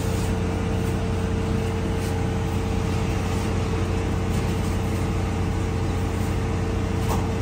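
Steady drone of machinery running, with a constant hum tone and a low rumble and no change in level.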